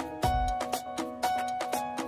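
Background music: a tune of short, evenly spaced notes, about four a second, with a deep beat landing near the start.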